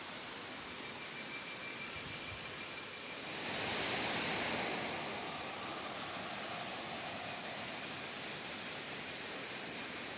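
Tropical forest ambience: a steady, high-pitched drone of cicadas over a soft background hiss, with a broad rush of noise swelling about four seconds in.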